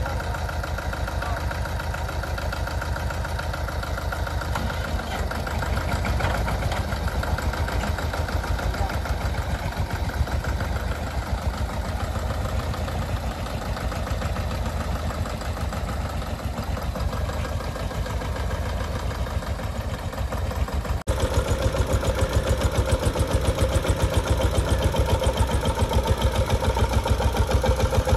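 Small diesel tractor engines running steadily under load as a Mahindra Jivo 305 tows a Mahindra Yuvraj 215 up a bank. About three-quarters of the way through, the sound jumps louder and closer, with a regular engine beat.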